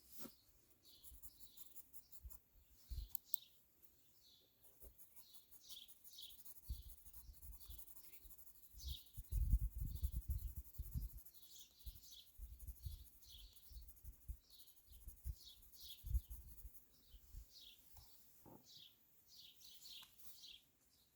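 Wild birds chirping repeatedly in short, high calls. Low rumbles and bumps come and go underneath, loudest about ten seconds in.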